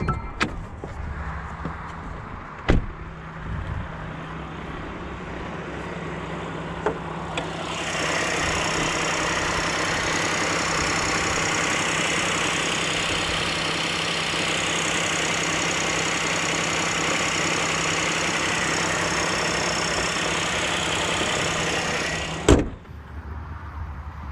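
Renault Rafale E-Tech Full Hybrid 200's 1.2-litre three-cylinder petrol engine running, with a few clicks and a sharp knock at the start. About eight seconds in, the running noise grows louder and hissier and holds steady. Near the end a loud thump, the bonnet shutting, cuts the noise down sharply.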